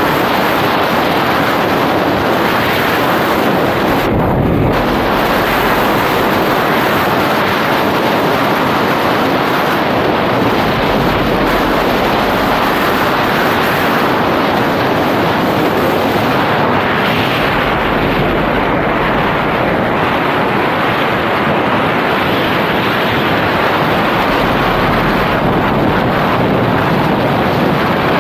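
A steady, loud rush of wind over the microphone, mixed with the roll of Seismic Alpha urethane skateboard wheels on asphalt, from a downhill skateboard at high speed.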